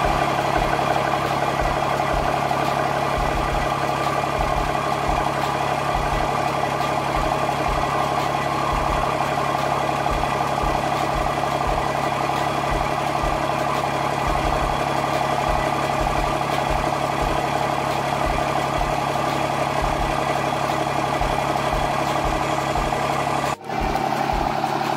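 Cummins turbodiesel in a third-generation Dodge Ram, newly fitted with compound turbochargers and fresh Amsoil oil, idling steadily just after its first startup. The idle is even and really quiet.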